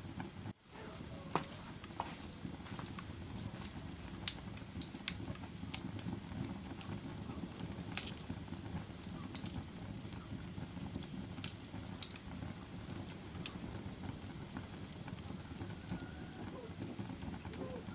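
Wood fire crackling: a steady low rustle of flames with sharp, irregular pops scattered through it.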